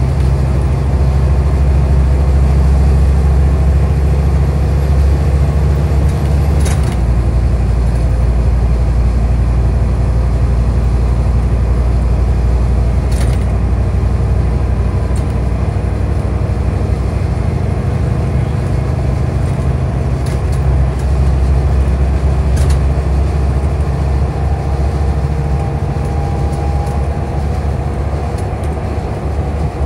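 Scania bus heard from inside the passenger saloon while under way: a steady, low engine and road drone that changes pitch about seven seconds in, with a few sharp rattles from the bodywork and fittings.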